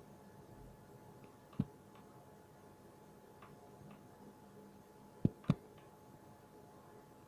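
A few sharp clicks over a faint steady hum: one about a second and a half in, then two close together about five seconds in, with a few fainter ticks between.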